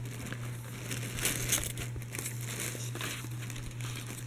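Paper and packaging crinkling and rustling as hands rummage in a gift box lined with tissue paper and handle a blush palette, loudest a little over a second in. A steady low hum runs underneath.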